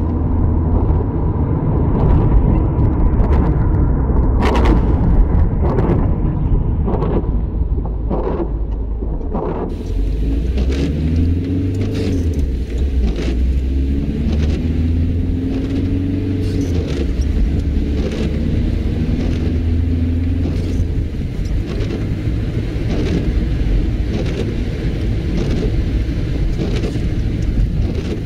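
Inside a car: a steady low rumble of the engine and road, with the windscreen wipers sweeping in a regular beat about once a second. The sound is muffled for the first ten seconds or so, then opens up, and a wavering tone rises and falls through the middle.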